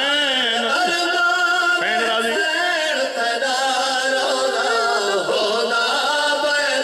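A man singing a Shia mourning lament (noha) in long, wavering, held notes, amplified through microphones and loudspeakers.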